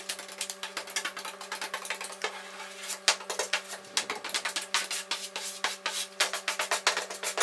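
A plastic spreader card and then a chip brush rubbing over a plywood boat hull, working thickened epoxy into the seams and zip-tie holes in a quick run of scraping strokes.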